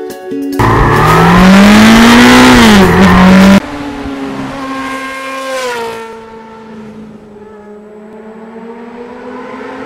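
Motorcycle engines revving. A loud stretch of engine pitch rising and falling starts about half a second in and cuts off abruptly at about three and a half seconds. A quieter engine then runs on, dropping in pitch once and holding steady.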